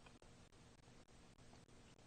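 Near silence: faint room tone with a scattering of soft clicks.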